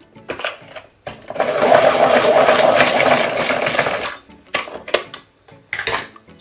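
Handheld electric pencil sharpener grinding a green coloured pencil for about three seconds, starting about a second in. Shorter bursts and clicks come before and after, as the pencils are put into and taken out of the sharpener.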